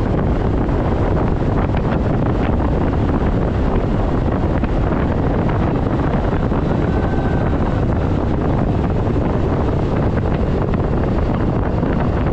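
Steady heavy wind rush over the microphone of a bass boat running fast across the water, with the outboard motor's drone underneath.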